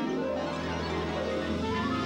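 Band music accompanying a dance: sustained chords with a melody line climbing near the end.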